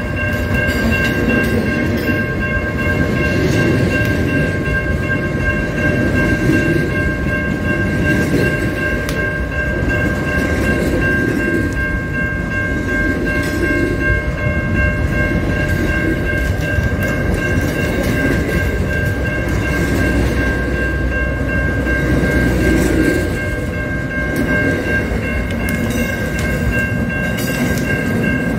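Long freight train of container and box wagons rolling past close by: a steady rumble and clatter of wheels that swells about every two seconds as each wagon goes by, with steady high tones ringing over it.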